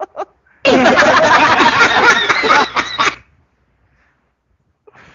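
A person laughing loudly in one burst of about two and a half seconds, starting just under a second in and then stopping.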